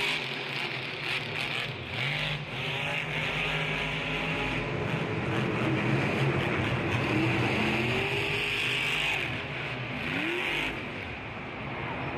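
Monster truck engines revving over a dense, steady din, their pitch rising and falling several times; the din eases off near the end.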